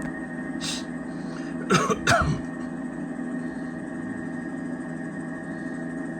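A person coughs or clears their throat twice, about two seconds in, over a steady electrical-sounding hum made of several fixed tones.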